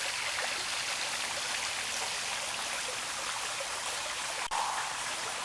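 Water running steadily in a small backyard garden waterfall and stream, a continuous trickling rush.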